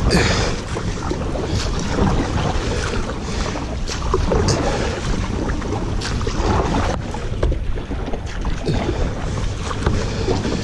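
Kayak paddle strokes splashing in the river, roughly one every two seconds, over a steady rush of water, while paddling upstream against the current. Wind buffets the microphone throughout.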